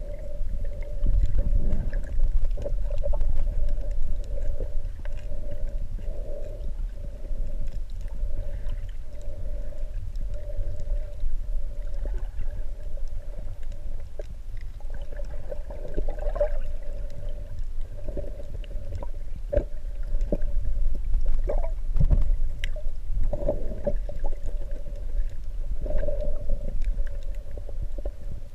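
Muffled underwater sound picked up by a GoPro Hero3 Silver in its waterproof housing: a steady low rumble of water with a wavering hum that comes and goes, and scattered clicks and knocks, several of them between about 16 and 23 seconds in.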